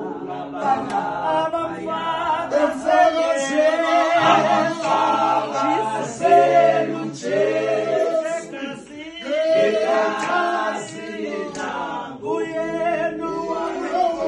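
A group of voices singing together in harmony without instruments, in the style of a choir.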